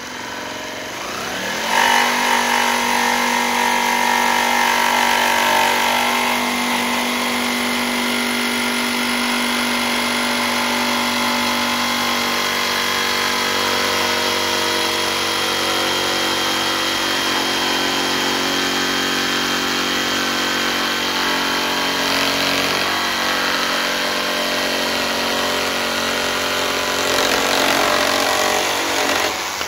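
Makita JV103D 12V max CXT cordless brushless jigsaw cutting through a wooden board. The motor spins up over the first two seconds, then runs at a steady pitch through one long cut and cuts off at the end.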